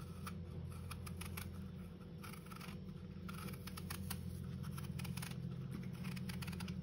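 Kitchen knife paring the skin off a raw apple: a quick, irregular run of small crisp scrapes and clicks as the blade cuts under the peel, over a steady low hum.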